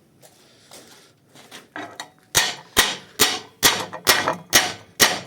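A hammer striking metal in steady, evenly spaced blows, a little over two a second, each with a short metallic ring. It begins with a few light taps and settles into hard regular strokes about two seconds in.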